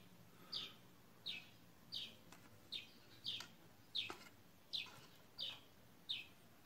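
A small bird chirping over and over, one short falling chirp about every two-thirds of a second.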